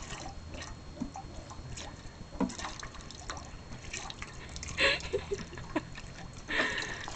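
Thin stream of water trickling onto a puppy's muzzle and into a steel dog bowl, with irregular drips and splashes as the puppy paws at the water. There are a few louder splashes about two and a half, five and six and a half seconds in.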